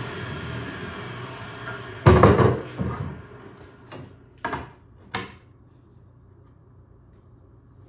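Table saw with a dado blade spinning down after a cut, its hum fading, then a loud wooden clatter about two seconds in and a few lighter knocks as plywood pieces are set down and handled.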